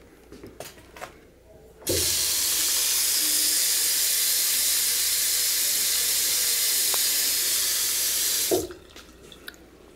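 Restroom faucet running onto a stone trough sink: a steady hiss of water that starts about two seconds in and cuts off abruptly some seven seconds later, with a low thud as it starts and as it stops.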